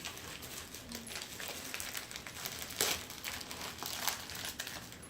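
Wrapping of a small present crinkling and rustling as a child handles it and pulls it open, with a few sharper crackles along the way.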